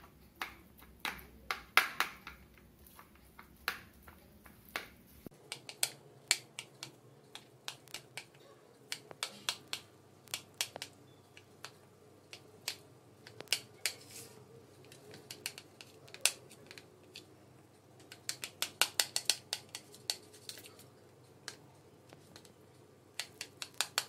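Knife cutting a steamed egg block into small pieces on a plastic plate, the blade clicking and tapping against the plate in irregular runs of sharp clicks.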